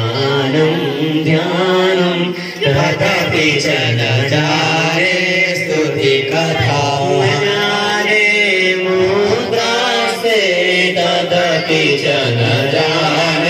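A Sanskrit devotional hymn to Goddess Durga, sung as melodic chanting by a voice in a slow, gliding melody of long held notes that runs without a break.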